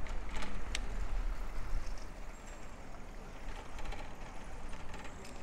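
City street ambience heard from a moving bicycle: a steady low rumble, with two or three sharp clicks in the first second and fainter ticks later on.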